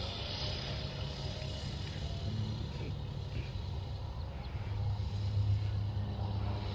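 Honda Elite 80 scooter's small single-cylinder four-stroke engine running at a distance as it rides off, a low steady hum that swells a little about five seconds in.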